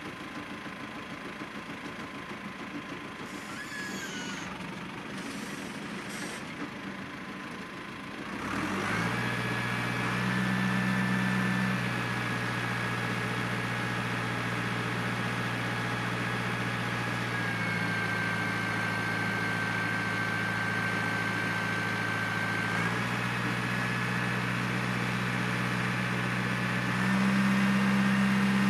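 Farm tractor's diesel engine ticking over quietly, then running up loud about a third of the way in to a steady drone with a thin high whine above it. The engine speed steps up and down a few times, the loudest stretch near the end.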